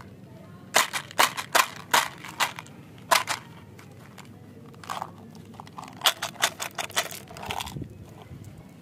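A small plastic candy container being handled: a run of sharp plastic clicks and cracks as its cap is worked open, then a second run of clicks and rattles as small hard-coated candies tip out into a hand.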